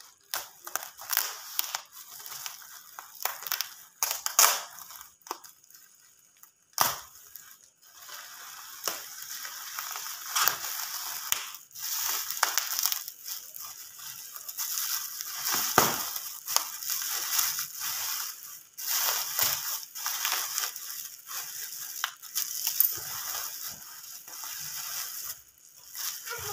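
Shiny plastic packaging wrap crinkling and crackling as it is handled and pulled off a parcel, with irregular rustling and a few sharp snaps.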